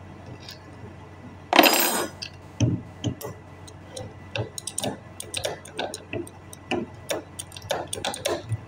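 Metal tools and starter-motor parts clinking and knocking during disassembly: one loud clatter about one and a half seconds in, then a run of short, irregular taps and clicks.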